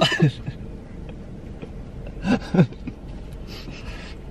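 A few short bursts of laughter: one right at the start, then two quick ones a little over two seconds in.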